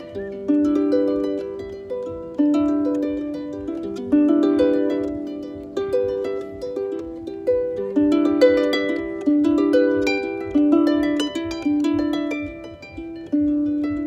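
Lever harp played solo by plucking: a flowing pattern of ringing notes over lower bass notes that sustain, with a fresh strong pluck every second or two.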